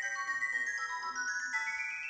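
LG U8330 flip phone playing one of its built-in polyphonic ringtones through its loudspeaker: a quick melody of short pitched notes.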